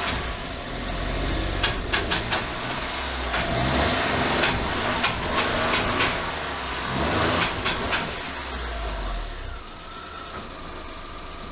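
Honda Acty van's small three-cylinder engine running, with scattered sharp clicks and knocks over it; it gets quieter about ten seconds in.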